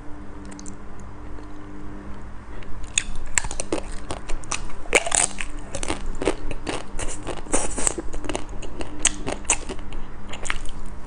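Crunching bites into the hard black coating of an ice cream bar, recorded close on a clip-on mic, followed by chewing. The crackling bites start about three seconds in after a quieter stretch and come in quick irregular clusters.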